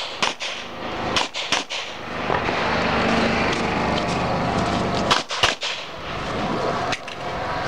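Pistol shots fired during a practical shooting stage. A shot comes right at the start and two close together about a second in, then a stretch of steady noise while the shooter moves. A quick pair of shots follows about five seconds in, and a fainter shot near the end.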